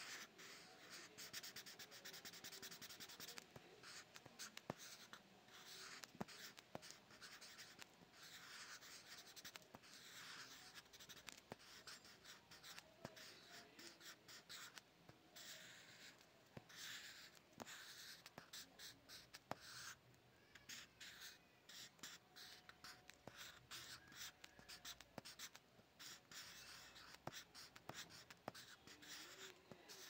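Fine-tip pen scratching across textured paper, faint: short drawing strokes one after another with brief pauses between them, and stretches of quick back-and-forth strokes.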